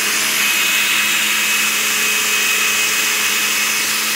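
Electric countertop blender running steadily, its jar full of watermelon being blended into juice, with a steady high motor whine.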